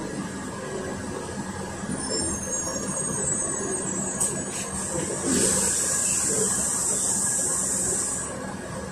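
Interior of a moving Volgabus 5270G2 city bus: the Yuchai YC6L280N compressed-natural-gas engine runs with a steady drone under road noise. About five seconds in, a high hiss starts and lasts about three seconds.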